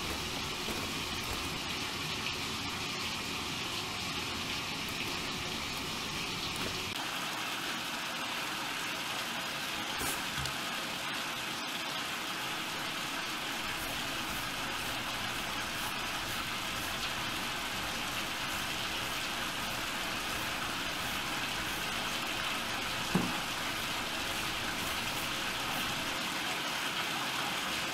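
Bathtub tap running steadily, water pouring into the tub as it fills, with one brief knock late on.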